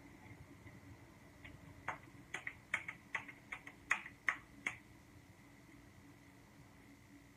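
Hands wet with water patting and slapping together, a quick run of about a dozen short, sharp slaps over about three seconds, starting roughly two seconds in.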